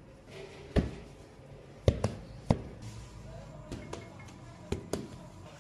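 Balls of bread dough being set down on a bran-covered bakery table: a series of about eight dull thuds at uneven intervals, the loudest about two seconds in.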